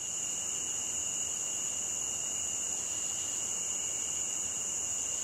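Insects droning steadily at a high pitch, with a fainter, lower second tone beneath and a soft hiss.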